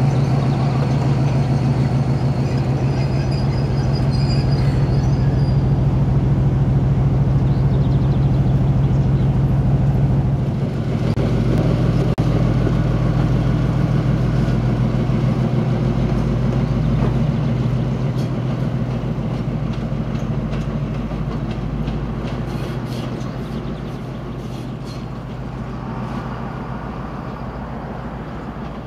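Diesel locomotive engines running with a steady deep drone. After a change about ten seconds in, it is a TEP60 passenger diesel locomotive's two-stroke V16 engine as the locomotive runs light over the station tracks, the drone fading in the last third.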